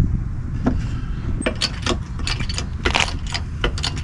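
Irregular clicks, knocks and clinks of tools and building material being handled during the sill-plate repair, about a dozen sharp hits over a steady low rumble.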